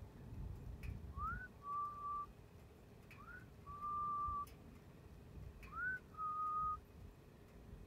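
A person whistling three times, each a short upward slide followed by a held steady note.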